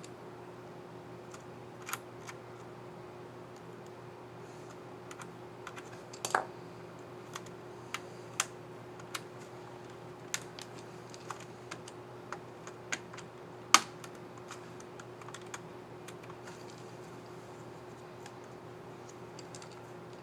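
Scattered plastic clicks and snaps from a laptop keycap and scissor mechanism being fitted and pressed on an HP 15-dy2073dx keyboard, irregular single clicks with one sharper snap partway through. A steady low hum runs underneath.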